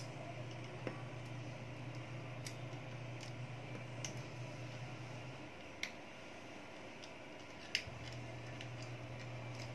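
Small sharp clicks as a fingertip presses the display flex-cable connectors onto an iPhone 5s logic board, about five ticks spread out, the two loudest past the middle. A steady low hum runs underneath and cuts out for a couple of seconds midway.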